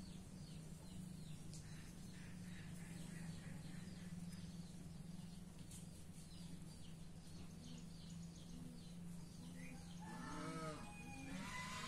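Small birds chirping repeatedly over a steady low hum. About ten seconds in, an animal gives several short calls that rise and fall in pitch.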